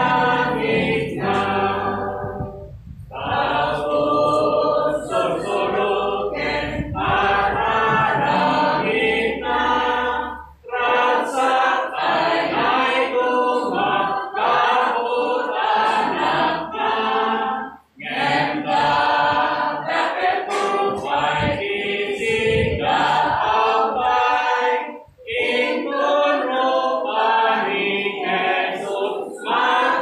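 A group of voices singing together, choir-like, in long phrases with brief breaks about every seven or eight seconds.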